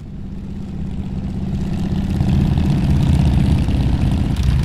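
An engine running with a deep, fast-pulsing rumble that swells louder over the first three seconds and then holds.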